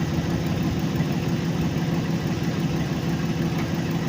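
2004 Chevrolet Express van's engine idling steadily at a constant speed.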